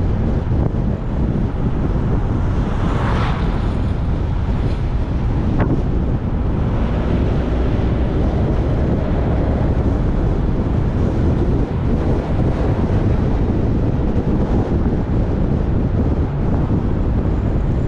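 Steady, heavy wind rumble on the microphone of a camera moving along a road, with road and vehicle noise beneath it and a brief swell about three seconds in.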